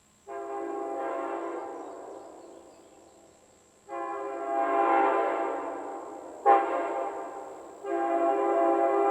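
A locomotive air horn sounded in four blasts: long, long, short, long, the railroad grade-crossing signal. The first blast fades away as it is held, and the short third blast is the loudest.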